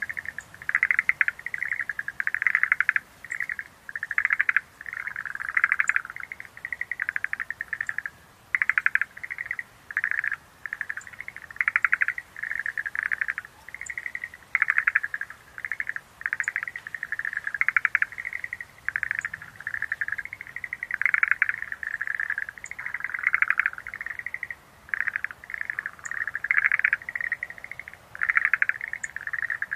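Schlegel's green tree frogs calling: short, rapidly pulsed trilling croaks, one after another every second or so in a near-continuous chorus.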